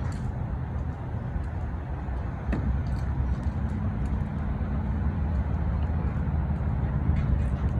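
Steady low rumble of road vehicles and trucks, growing louder about two and a half seconds in.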